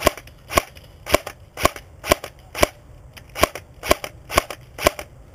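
Umarex S&T UMP .45 electric airsoft gun with a silencer fired in single shots: ten sharp shots, about two a second, with a brief pause after the sixth.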